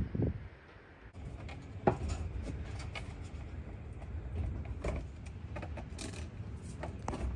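Scattered clicks and knocks of hardware and tools being handled while bolting on a windshield, about five in all, the sharpest near two seconds in, over a low steady rumble.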